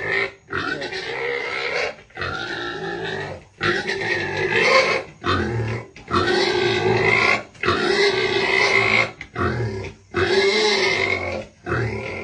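Pigs calling loudly in a run of long, noisy calls, each a second or so long, with short breaks between them.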